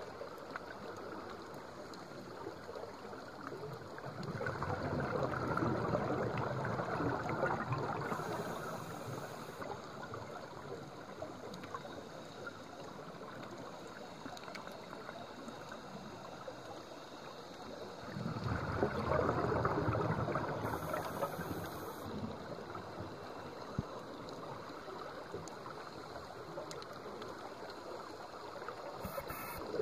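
Underwater sound of a scuba diver's exhaled breath bubbling out of the regulator, swelling into a loud bubbling burst twice, about four seconds in and again about eighteen seconds in, over a steady underwater hiss.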